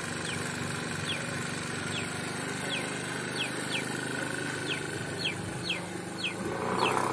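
Scooter engine running low and steady as the scooter moves off, over a bird's short falling chirps repeated about twice a second. It gets louder and noisier near the end.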